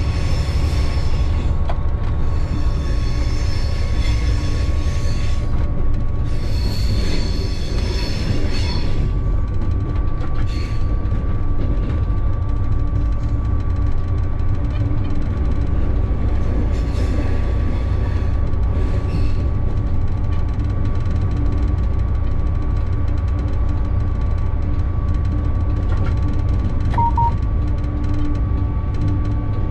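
Locomotive running, heard from inside its cab: a steady low rumble of the engine and running gear, with high-pitched wheel squeal in stretches over the first nine seconds or so and more faintly again later. A short beep comes near the end.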